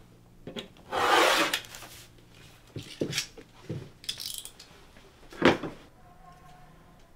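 Paper and hand tools being handled on a cutting mat: a rustling scrape of paper about a second in, then light clicks and taps, and one sharper knock a little past five seconds.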